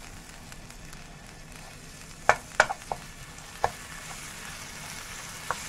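Minced garlic sizzling in hot oil in a nonstick frying pan. A metal spoon clicks against the pan about five times, loudest twice a little after two seconds in.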